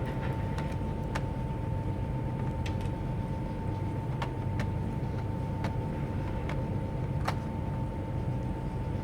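A steady low hum with a constant thin whine over it, and scattered light clicks and taps at irregular moments.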